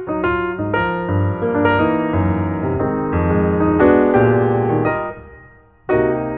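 Background piano music: a run of piano notes that die away about five seconds in, with new notes starting again just before the end.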